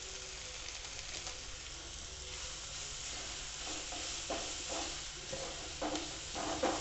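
Chopped vegetables sizzling steadily in a hot non-stick frying pan as spice mix is sprinkled in and stirred with a wooden spatula. In the second half the stirring gets louder, with several short scrapes and knocks of the spatula in the pan.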